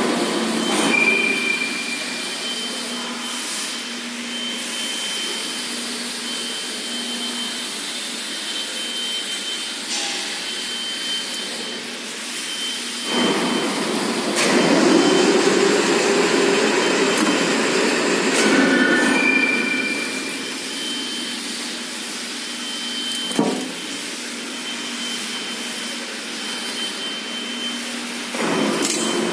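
KAIBO CNC DC-1317 double-column engraving and milling machine running: a steady mechanical hum with a high whine that comes and goes. It grows louder for several seconds around the middle, with a single short knock later on.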